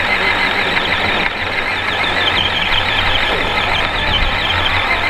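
Electric drive motors and gearboxes of two Axial RC trucks, a Wraith and a Deadbolt, running at full throttle while they pull against each other in a tug of war. A loud, high whine wavers up and down in pitch over a dense mechanical grinding.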